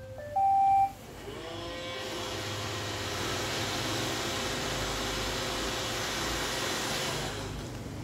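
iRobot Roomba 780 robot vacuum plays a short rising beep tune as it is started, then its vacuum motor and brushes spin up with a rising whine and run with a steady whir and hiss for about six seconds, winding down near the end.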